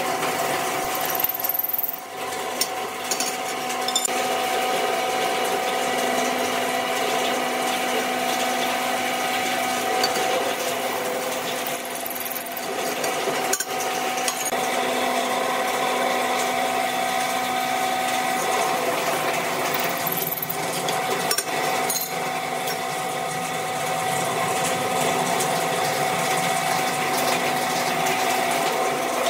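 Benchtop drill press running steadily with a constant motor hum while its bit drills holes through square metal tubing.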